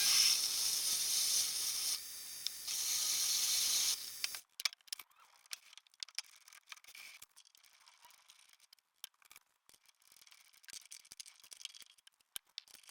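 A hissing, rasping metalworking noise on a small workpiece lasts about four seconds, dipping briefly about two seconds in. It is followed by scattered light clicks and taps of small metal parts and tools being handled.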